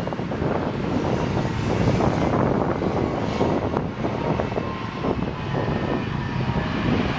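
Caterpillar 793D mining haul truck's diesel engine running loud and steady as the loaded truck drives by, with a deep rumble under a dense noise. A second, empty haul truck passes close in front of it near the start.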